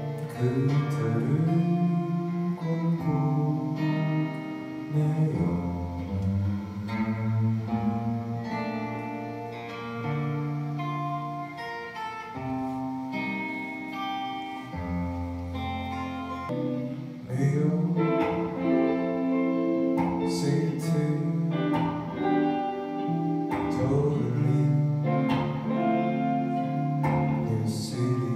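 A man singing while playing guitar, with a second guitar joining in, in a small live performance.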